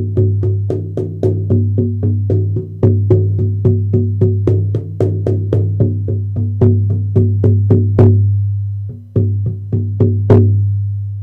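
Buffalo-hide egg drum beaten in a steady fast rhythm, about four strokes a second, each stroke sounding a very deep, powerful boom that keeps ringing under the next. The beating stops about eight seconds in, comes back for a few strokes, and the last one rings out slowly.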